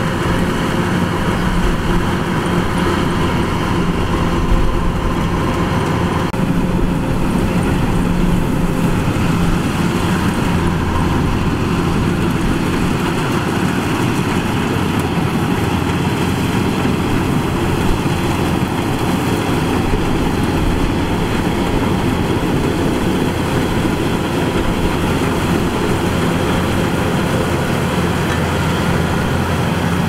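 Kubota DC-105X combine harvester's diesel engine and threshing machinery running steadily while harvesting rice, a continuous loud hum whose tone shifts slightly about six seconds in.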